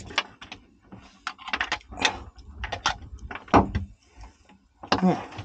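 Handling clatter: an irregular run of short clicks and knocks as a plastic battery switch unit and its cable lugs are moved about by hand.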